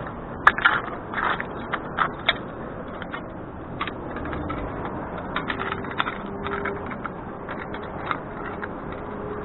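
Scissors snipping through a thin aluminum beer can: a run of short sharp snips, densest in the first couple of seconds, then scattered, over a steady background hiss.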